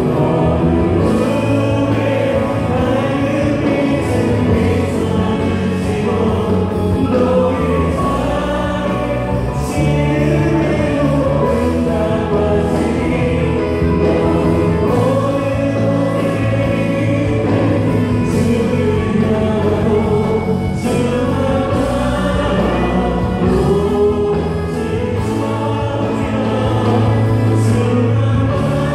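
Live church praise band playing a gospel worship song: a group of voices singing over a Yamaha Montage 8 keyboard, electric bass and drums.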